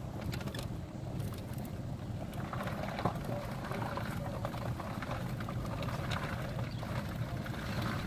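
Steady low rumble of a vehicle's engine and running noise, heard from inside the cab, with some light crackle and rustle over it.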